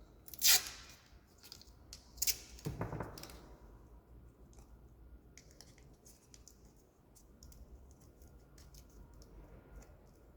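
Wires and connectors being handled on the wiring board: two short sharp rustling scrapes, a longer rough scrape, then scattered light clicks.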